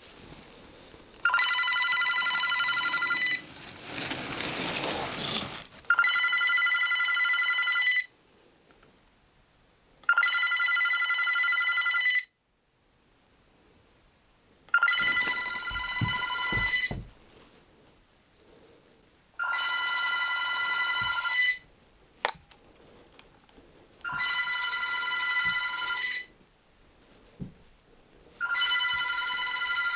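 Corded landline desk telephone ringing with an electronic ring: seven rings of about two seconds each, repeating about every four and a half seconds.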